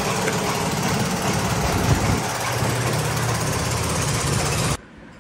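A small engine or motor running steadily and loudly, then cutting off suddenly near the end.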